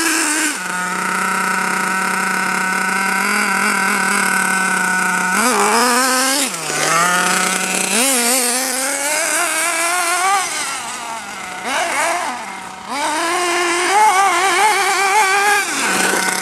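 Small nitro engine of a Hobao Hyper 8.5 RC buggy idling steadily for about five seconds, then revved up three times, each time climbing in pitch and dropping back to idle.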